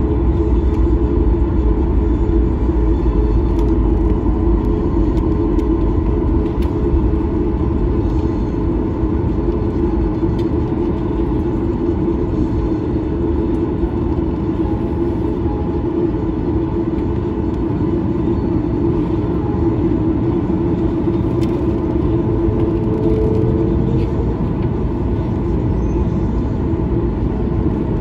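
Boeing 737 airliner cabin sound while taxiing: the jet engines at low power give a steady drone over a deep rumble of the aircraft rolling along the taxiway.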